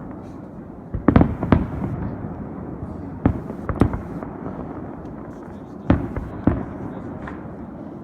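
Aerial fireworks shells bursting: sharp booms in loose pairs about half a second apart, coming about every two to three seconds, with smaller pops between them, over a steady background rumble.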